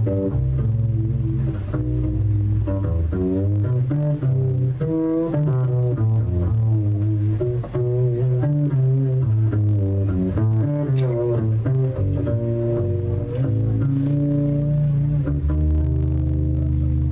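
Solo double bass played pizzicato: a line of plucked low notes, some held and some in quicker runs a few seconds in and again around the middle.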